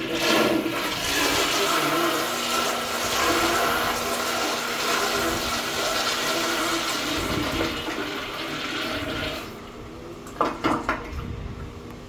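Royal & Company RWC224 toilet flushing: a loud rush of water that starts suddenly and runs for about nine and a half seconds, then drops to a quieter refill, with a few short knocks about ten and a half seconds in.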